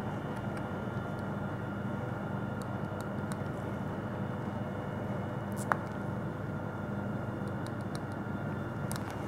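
Steady mechanical hum in the room, with a few faint clicks from handling plastic microcentrifuge tubes and a micropipette. One sharper click comes a little over halfway through.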